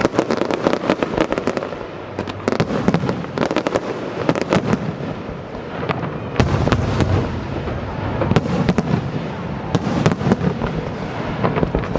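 Fireworks display: rapid, overlapping bangs and crackling, with a deeper rumble of heavier bursts joining in from about six seconds in.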